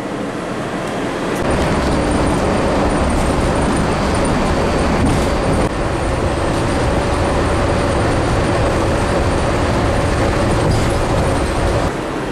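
Walt Disney World monorail running, heard from inside the car: a steady low rumble and rushing noise with a faint whine holding one pitch, starting about a second and a half in.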